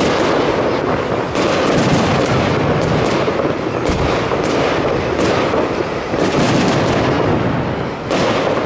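Fireworks display: aerial shells bursting in rapid, continuous bangs and crackles, several reports a second over a loud, rumbling wash of echoing explosions.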